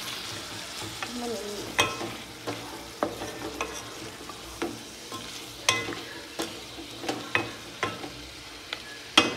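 Wooden spoon stirring beef stew in a metal cooking pot, knocking sharply against the pot's side about ten times at uneven intervals, over a soft steady sizzle of the stew cooking.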